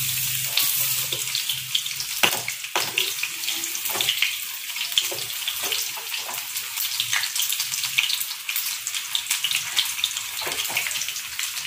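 Marinated chicken tikka pieces deep-frying in hot oil in a kadhai: a steady, dense sizzle with many small crackles and occasional sharper pops as the pieces are turned with a slotted ladle.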